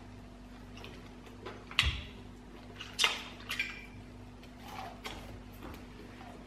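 Eating sounds: wet mouth smacks and sucking as fried chicken is sucked off the bone and fingers are licked clean. There are a few sharp smacks, the loudest about two and three seconds in, over a faint steady hum.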